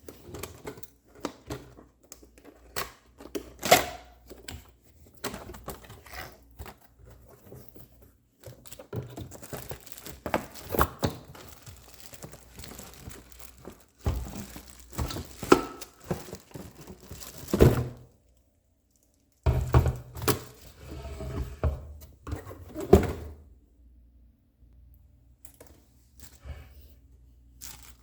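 Packaging of a boxed slow cooker being unpacked: cardboard and wrapping tearing and crinkling, with irregular knocks and thuds as the box and its contents are handled. The sound drops out for a moment a little past halfway.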